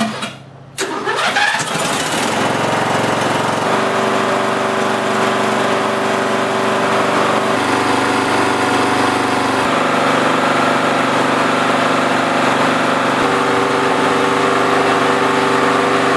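Lawn tractor's single-cylinder Briggs & Stratton overhead-valve engine being started on the electric starter: it cranks, catches about a second in and settles into steady running. The engine burns a lot of oil, which the owner thinks is probably down to worn piston rings or a scratched cylinder.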